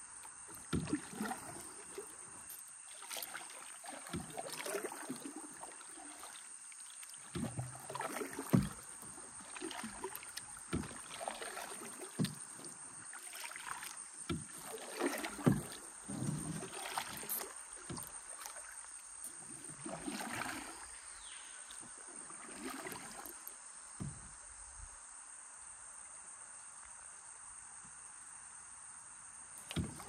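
Kayak paddles dipping and splashing in water in irregular strokes, which die away in the last few seconds.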